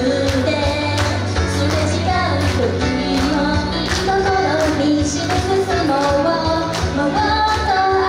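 Female voices singing a pop song over a steady drum beat and bass.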